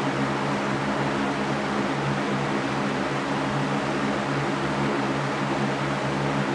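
Steady sleep white noise: an even, unchanging hiss with a low steady hum beneath it, like a fan running.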